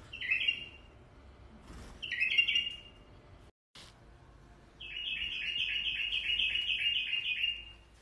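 Bulbul singing: a short chirping phrase near the start and another about two seconds in, then a longer run of quick repeated notes, about four a second, over the last three seconds.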